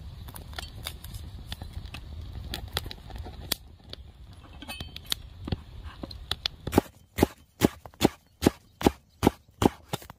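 Knife slicing a red pepper on a wooden cutting board: a regular series of sharp knocks, about two and a half a second, starting about seven seconds in. Before that, small clicks and rustles of hands pulling the pepper apart.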